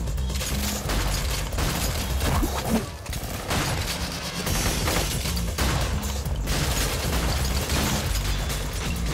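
Film gunfight mix: rapid automatic gunfire and bullets smashing into stone, with debris scattering, over a driving electronic music track with a heavy bass beat. Loudness dips briefly about three seconds in.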